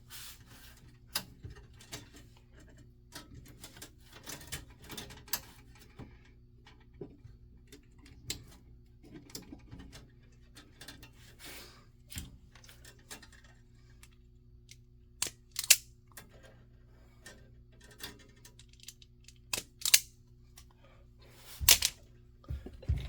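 Small clicks, taps and rustles of hands working stripped Cat 5e wires and small tools at an alarm panel's terminals, with a few sharper snaps near the end. A faint steady low hum runs underneath.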